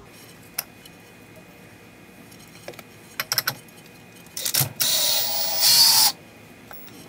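A few light metal clicks and a knock as the secondary clutch parts are handled, then a cordless drill spins a deep-well socket on the RZR Turbo secondary clutch's fastener for about a second, getting louder near the end.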